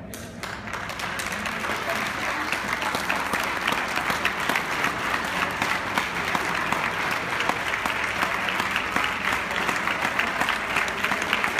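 Audience applauding: many people clapping together, swelling over the first couple of seconds and then going on steadily.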